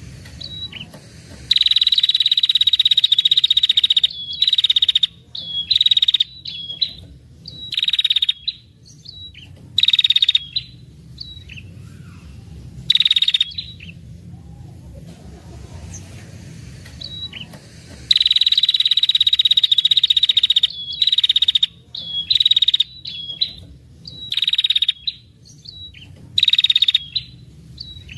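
Female red-headed prenjak giving long, rapid rattling trills (ngetir), a lure call that draws in males. Two long trills of about three seconds, about 1.5 s in and about 18 s in, with many shorter trills between them.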